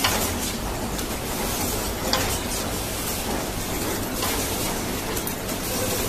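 Steady running noise of automatic wire cutting and terminal crimping machines, with a sharp clack about every two seconds.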